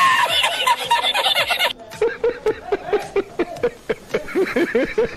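Men laughing hysterically in inserted meme clips: a high-pitched cackle for about the first second and a half, then, after a short break, a second man's rhythmic laughter at about four bursts a second.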